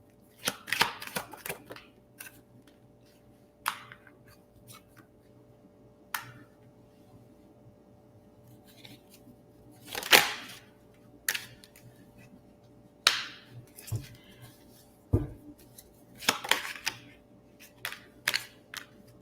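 Tarot cards being handled: scattered light clicks and short snapping rustles as cards are shuffled, flipped and laid down, the loudest snap about halfway through and a dull thump on the table a few seconds later.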